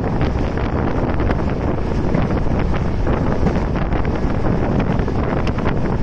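Wind buffeting the microphone over the steady running noise of a moving passenger train, with scattered light clicks and rattles, heard from the side of the carriage.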